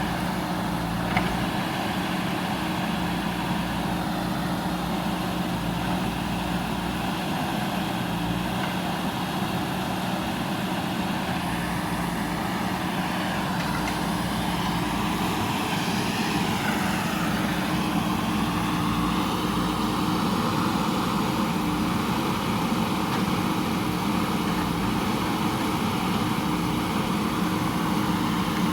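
JCB backhoe loader's diesel engine running steadily, with a sharp knock about a second in and a higher whine that dips and rises in pitch around the middle.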